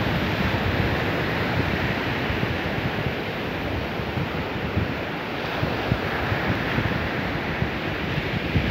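A dog digging in loose soil, its forepaws scraping and flinging dirt in a steady rushing scratch. Wind buffets the microphone with an uneven low rumble.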